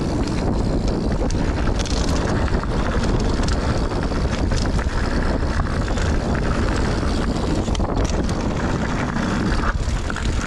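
Wind buffeting the action-camera microphone over the rumble of a Scott Ransom 910 mountain bike's tyres on a dirt trail descent. Scattered clicks and rattles come from the bike over bumps.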